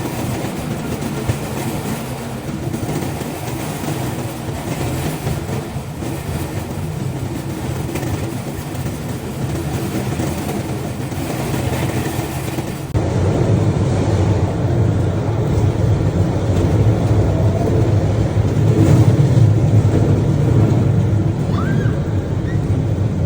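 Steel wheels of a pedal-powered rail bike rolling along the rails: a steady rumble that steps up suddenly and gets louder about halfway through.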